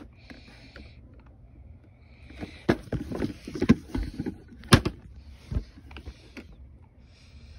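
Hard plastic parts of a toy garbage truck and its bin clattering and knocking as they are handled, with an irregular run of knocks about two and a half to six and a half seconds in, the sharpest one just before five seconds.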